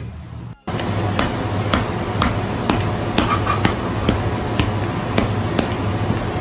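A cat's paw slapping another cat over and over, sharp slaps about two a second over a steady hiss and low hum.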